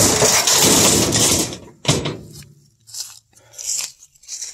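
A loud crash and rattle as a thrown box strikes a battered grill and knocks it off its perch. About two seconds in there is a single sharp knock, then a few fainter knocks.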